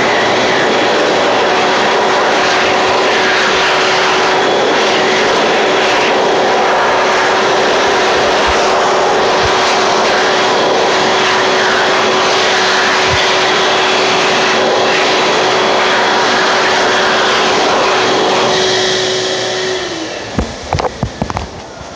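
Electric hand dryer running at full speed: a loud, steady rush of air with a constant motor hum. It winds down near the end as the motor spins down.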